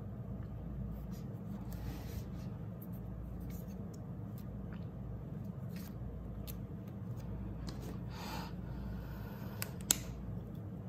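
Paper rustling and light taps as stickers and a paper cut-out are peeled and pressed onto a spiral notebook page, over a steady low background hum. A short rustle comes about eight seconds in and a sharp tap near the end.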